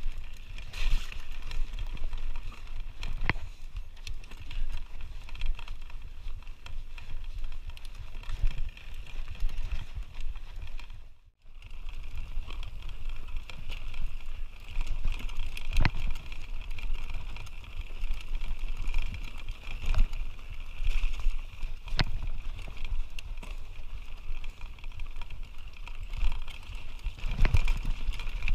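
Canyon Spectral mountain bike riding down a dirt and rocky singletrack: steady tyre and trail noise with low rumble, rattling, and sharp knocks as the bike hits bumps and rocks. The sound cuts out for a moment near the middle.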